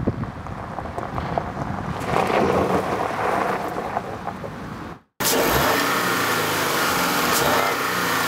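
Audi Q7 pulling away over gravel, with rough tyre-on-gravel noise and wind on the microphone. After a sudden cut about five seconds in, the Q7's 3.0-litre TFSI petrol V6 is heard running steadily up close in the open engine bay.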